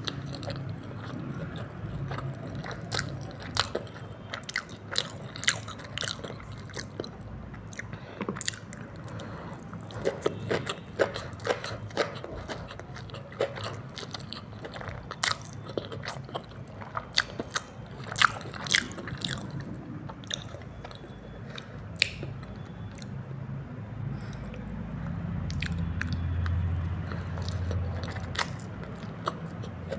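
Close-miked mouth sounds of a person eating chow mein noodles: chewing and biting, with many short, sharp wet clicks scattered irregularly throughout.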